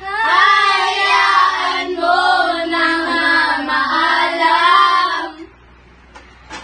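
A group of girls singing together, with more than one voice at once and notes held and sliding. The singing stops about five seconds in, leaving a short lull.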